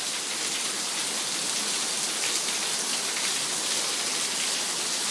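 Heavy rain pouring steadily onto a concrete patio, a constant even hiss.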